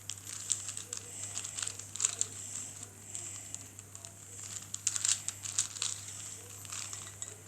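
Irregular plastic clicking and rustling of a 4x4 Rubik's Cube being handled and its layers turned.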